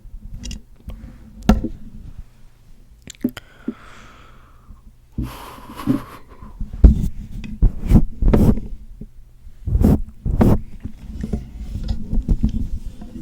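Close-miked ASMR sounds around a tube of Too Faced Lip Injection lip gloss: scattered clicks, taps and soft knocks with low thumps, and a short breathy rush like a sniff about five seconds in.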